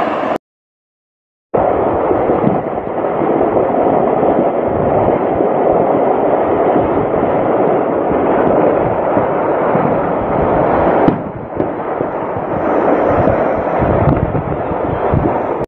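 Ammunition cooking off in a burning munitions factory: a dense, continuous crackle of small detonations, with one sharper bang about eleven seconds in. It starts after a second of silence near the beginning.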